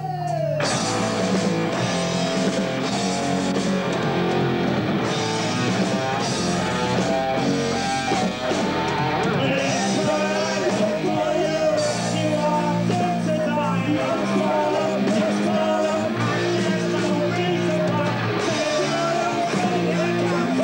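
Rock band song: electric guitar, bass and drums with a singer's voice over them.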